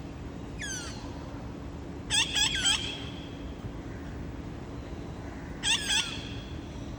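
Parrots giving short, harsh, downward-sliding calls in clusters: a faint single call early, a loud run of three just after two seconds, and two more near the end. A steady low hum runs underneath.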